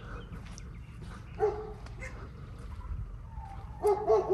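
Dog whining: one short whine about a second and a half in, then a quick run of short whines near the end, the dog worked up at a fox nearby.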